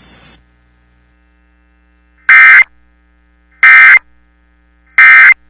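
Emergency Alert System end-of-message signal: three short, loud, buzzy bursts of SAME digital data tones, about a second and a half apart, marking the end of the alert message.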